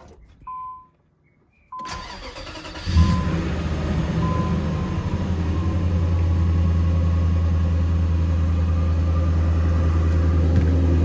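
Infiniti Q45's VH41DE V8 started cold: the starter cranks for about a second, the engine catches about three seconds in and settles into a steady idle. A warning chime beeps a few times as it starts. The idle runs without the rough idle it had, which is taken as the fault gone.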